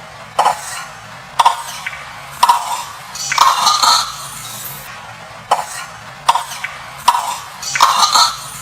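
An old male monkey coughing loudly in his sleep: about eight short, harsh coughs, roughly one a second, a few of them drawn out into longer hacking fits.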